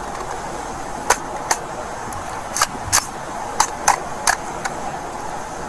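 Handling of a rifle and its sling hardware: about eight sharp clicks, some in quick pairs, over a steady background hiss.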